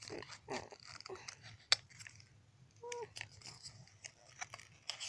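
Small cardboard toy boxes and plastic toy pieces handled close to the microphone: scattered clicks, taps and light crackles, with one short pitched sound about three seconds in.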